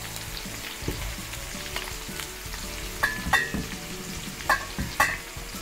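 Beef pieces sizzling in their own rendered fat, no added oil, in a Saladmaster pan as metal tongs stir in chopped onion and garlic. A few sharp, ringing clinks of the tongs against the pan come in the second half.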